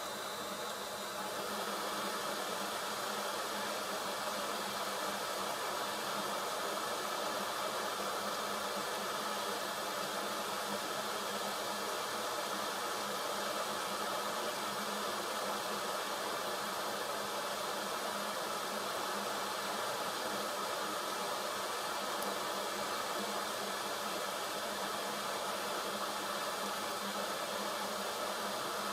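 Hot-air rework gun blowing a steady stream of hot air, reflowing solder to set a phone charge port's legs onto the circuit board. The hiss steps up slightly about a second in and then holds even.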